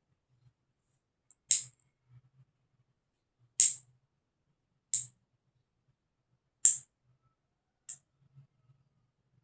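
Nail clippers snipping through long, month-old nails: five sharp clicks a second or two apart, the last one fainter.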